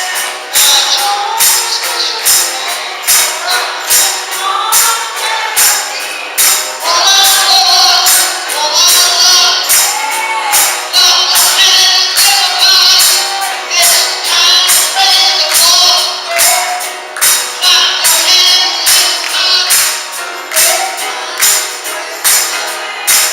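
Gospel music: voices singing a melody over a tambourine struck on a steady beat, about two to three strokes a second.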